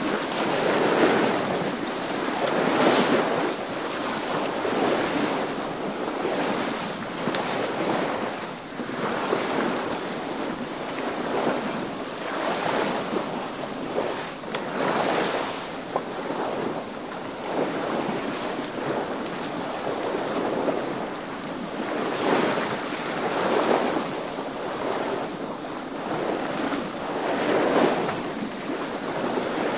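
Sailing boats under way, with water washing past in uneven surges every second or two.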